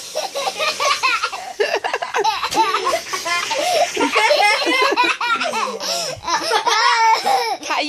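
Several people laughing hard, including a young child's high-pitched giggling, in long, continuous peals.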